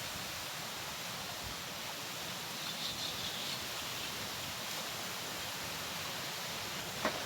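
Wind and trickling water making a steady, even hiss, with a single short click near the end.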